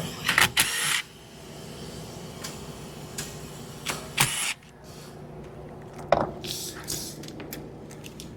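Hand tools working the drain plugs out of an outboard's lower gear case: scattered metallic clicks and knocks, with two short hissing bursts, one at the start and one about four seconds in, over a steady low hum.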